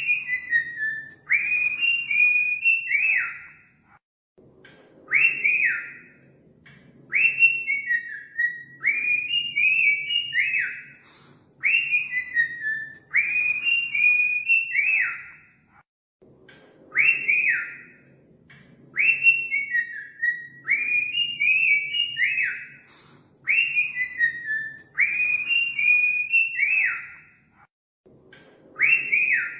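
Cockatiel whistling its song: quick runs of short whistles that slide downward in pitch, in a phrase that repeats about every twelve seconds after a brief pause, over a faint low hum.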